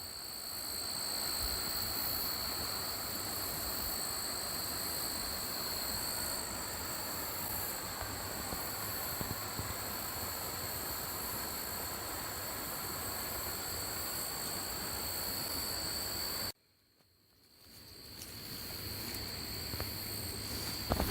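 Steady rush of running water with a continuous high, even insect drone over it. The sound cuts out abruptly for about a second near the end, then fades back in.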